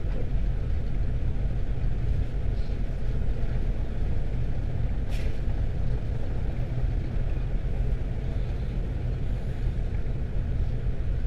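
Steady low rumble on board an underway, loaded crude tanker: the ship's machinery and wind buffeting the microphone together. A short hiss comes about five seconds in.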